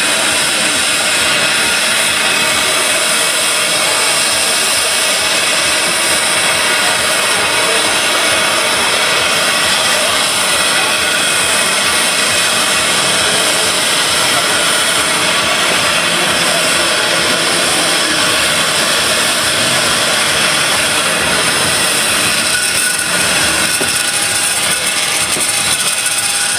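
Machinery running steadily and loudly: a dense, even mechanical noise with several steady tones through it.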